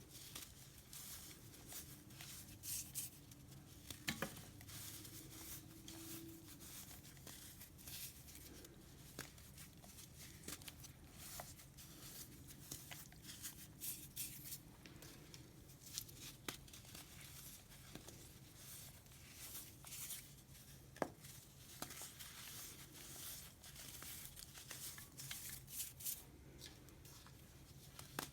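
Baking soda chunks fizzing in vinegar: a faint, continuous crackling hiss of bursting bubbles, with a few sharper clicks.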